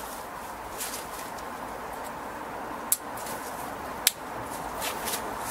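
Two sharp clicks about a second apart as a click-on garden hose connector is fitted to the adapter on top of a copper pipe ground rod. A steady hiss runs underneath.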